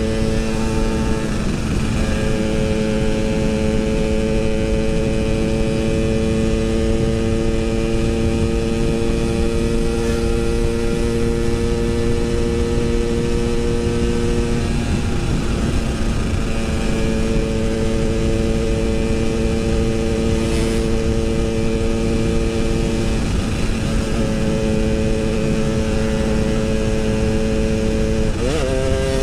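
Yamaha RX-King 135cc single-cylinder two-stroke engine running under way at steady revs, its note holding level for long stretches. The note breaks briefly about a second in and twice partway through, then climbs near the end as the revs rise.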